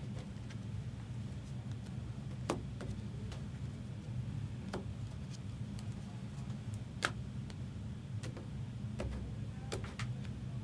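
A few sharp, isolated clicks a second or two apart over a steady low hum.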